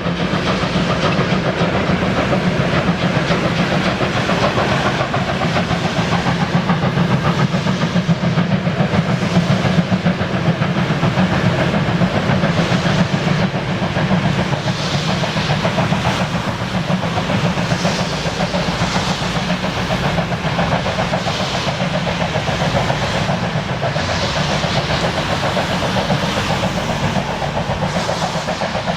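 Class 52 two-cylinder steam locomotive 52 1360 and its train running steadily at speed, with hiss from the engine and wheels clattering on the rails.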